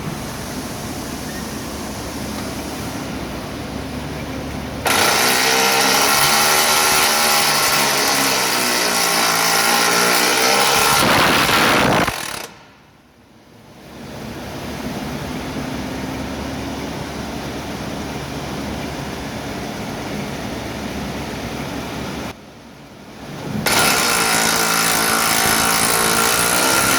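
2017 Chevrolet Silverado pickup running with a steady, rough, rushing mechanical noise. It gets louder about five seconds in and again near the end, with two short drops between.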